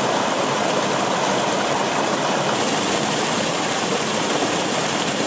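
A small waterfall on a steep mountain stream: water pouring and splashing over rocks, a steady, loud rush heard close up.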